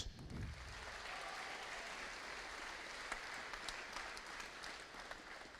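Audience applauding: a steady patter of many hands clapping that tapers off near the end.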